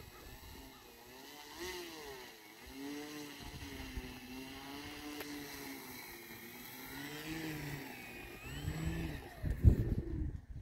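E-flite Carbon-Z Cub RC plane's electric motor and propeller whining in flight, the pitch wavering up and down as it flies past and the throttle changes. A loud thump on the microphone near the end.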